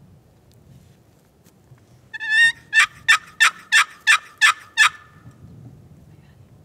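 Hand-held turkey call worked by a hunter: one drawn-out lead-in note, then a run of seven sharp, evenly spaced yelps, about three a second.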